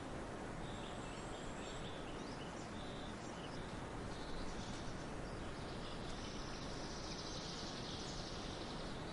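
Wild birds singing over a steady outdoor background hiss: short high chirps in the first half, then a long high trill from about six seconds in that lasts some three seconds.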